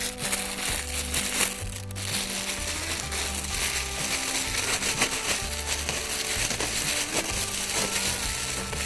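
Thin disposable plastic gloves crinkling and rustling as they are pulled onto the hands, with background music playing.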